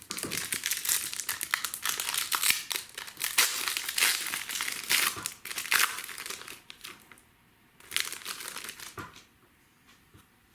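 Plastic trading-card packaging crinkling and tearing as it is opened by hand, in a long run of dense crackling, then a second shorter burst about eight seconds in.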